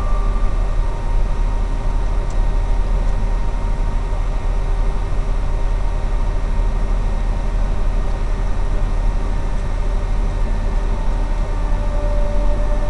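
Radio-controlled truck driving, heard from its onboard camera as a steady rumbling noise with no clear rhythm.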